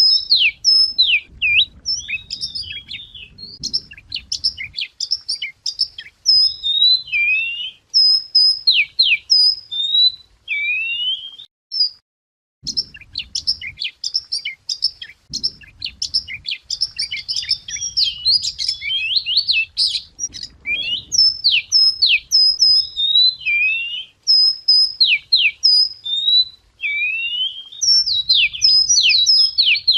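Wagtail singing: fast, varied runs of high, clear whistled notes with sharp rising and falling sweeps, broken by a brief pause near the middle. This is a song recording used as a lure for training or calling wagtails.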